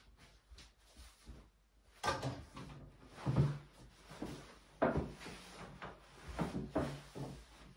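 Several wooden knocks and bumps on an 18 mm birch plywood shooting table as an air rifle is laid on its top and a man sits down on its seat.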